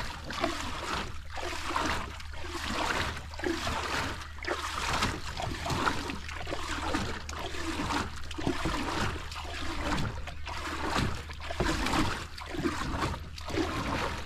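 Water splashing and sloshing in a steady rhythm of strokes, about one a second, as a small dinghy is rowed across a still gorge pool, under a low steady rumble.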